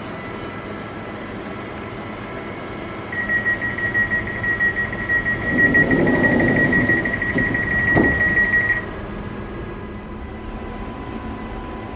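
Door-closing warning of a Newag Impuls 2 electric multiple unit: a high warning tone sounds from about three seconds in for nearly six seconds, while the passenger doors slide shut and close with a thump about eight seconds in. The train's steady equipment hum runs underneath.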